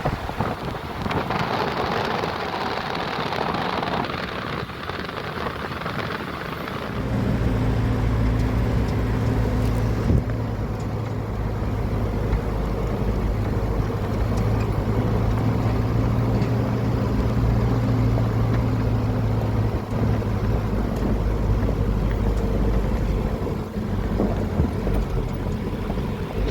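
A rushing, hissing noise, then about seven seconds in a steady low engine hum comes in and keeps running.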